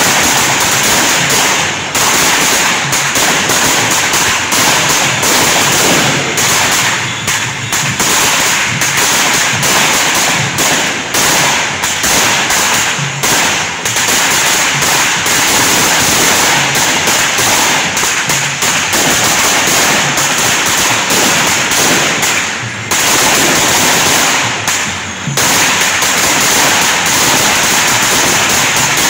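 Ground-laid firecrackers exploding in rapid, continuous succession, a dense crackle of bangs with a few brief lulls.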